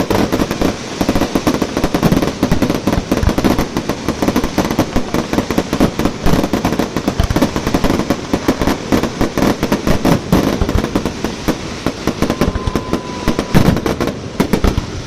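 Fireworks display: a dense, continuous barrage of rapid crackling bangs and booms, many a second, with a brief thin whistle near the end.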